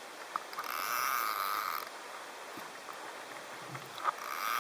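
Underwater ambience with two rushes of bubbling hiss, each a little over a second long and about three and a half seconds apart, with a few faint sharp clicks between them.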